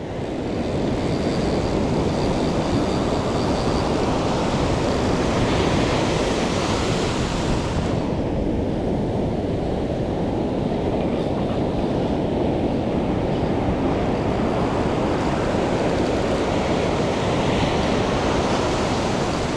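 Ocean surf washing steadily on the beach, with wind rumbling on the microphone; the higher hiss drops away suddenly about eight seconds in.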